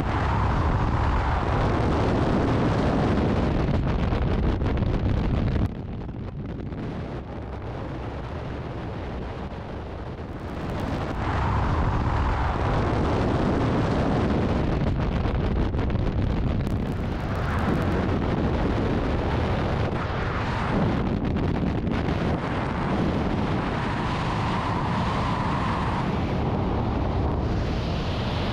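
Freefall wind blasting over the camera's microphone: a loud, steady rushing noise that drops abruptly quieter about six seconds in and rises again about four seconds later.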